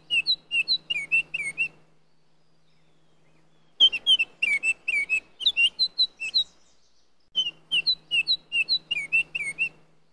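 A songbird singing in bursts of quick, high chirps. Each burst lasts about two seconds, and there are pauses of about two seconds between them.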